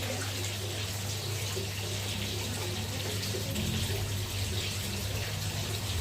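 Steady rush of water pouring into a tarpaulin fish pond, under a steady low hum.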